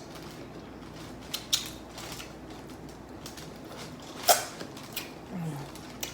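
A few sharp clicks and cracks from handling a seafood boil, the loudest about four seconds in, with a short low groan near the end.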